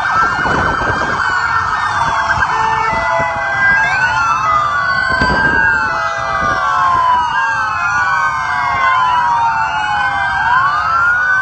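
Several police motorcycle sirens wailing at once and out of step, each slowly rising and falling in pitch, with motorcycle engines running underneath.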